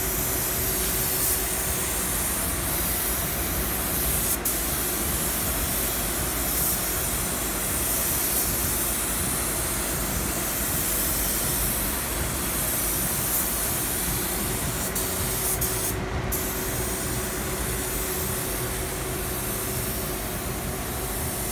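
Compressed-air paint spray gun hissing steadily while spraying a truck body, with a brief break about sixteen seconds in; a steady low hum runs underneath.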